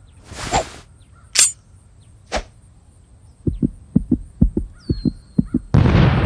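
Cartoon sound effects: a whoosh, a sharp swishing hit and a click, then a fast, pounding heartbeat of low thumps, cut off near the end by a loud booming hit that rings out slowly.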